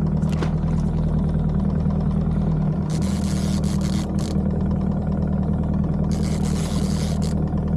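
Fishing boat's engine running steadily at trolling speed, a constant low hum. Two stretches of hiss come over it, about three and six seconds in.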